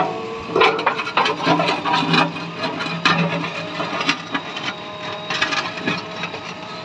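Steel bucket of a JCB 3DX backhoe loader scraping and rasping over the road surface in repeated, irregular strokes, over the steady run of the machine's diesel engine.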